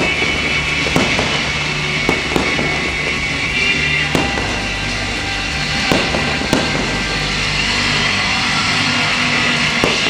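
Fireworks going off as several sharp bangs spaced irregularly over about ten seconds, over steady loud music.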